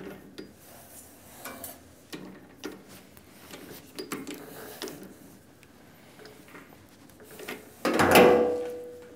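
Light metal clicks and scrapes of a steel part and a 5C collet chuck being handled by hand on a lathe, then a loud metallic clank about eight seconds in that rings briefly and dies away.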